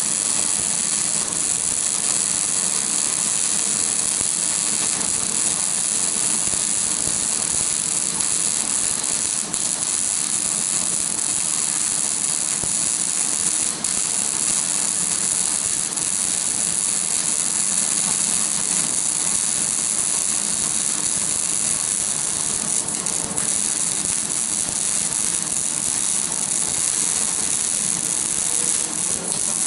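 Welding arc burning steadily with a crackling hiss, with two brief dips around ten and fourteen seconds in.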